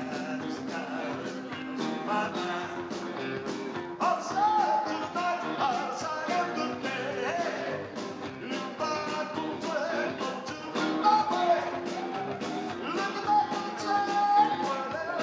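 Live rock band playing on stage, with electric guitars and drums, and a man singing into the microphone from about four seconds in.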